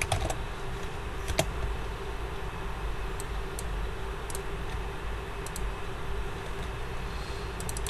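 Scattered computer keystrokes and clicks, one every half second or so, as text is typed and corrected, over a steady low hum.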